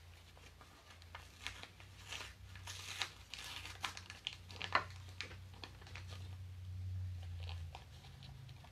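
Cardboard box of cornstarch being torn and pulled open by hand: a scatter of short tearing, crinkling rustles, busiest in the first few seconds, over a steady low hum.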